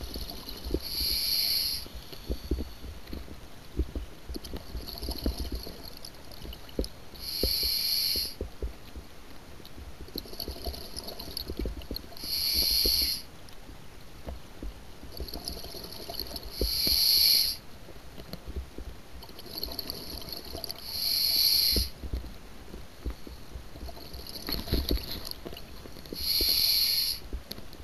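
Scuba diver breathing through a regulator underwater: a hiss on each breath about every four seconds, with bubbling and crackling of exhaled air between.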